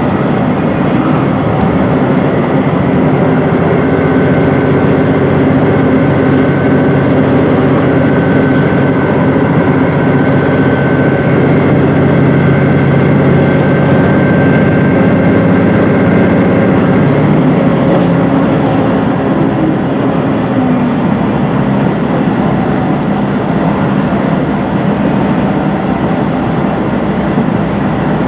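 Inside the cabin of a HOT7000-series diesel express train under way: a steady diesel engine drone with wheel and rail noise. The engine note drops about two-thirds of the way through.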